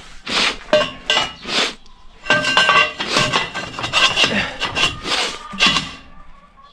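Steel frame of a tractor-mounted cone log splitter clanking and scraping as it is handled and fitted: a quick run of metallic knocks and rubs, some with a short ring.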